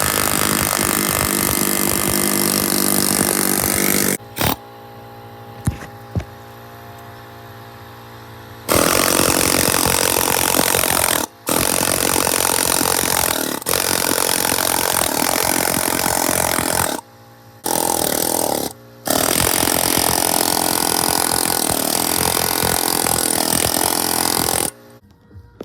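Power tool cutting through a metal jerrycan, running in several long, loud bursts with short stops between.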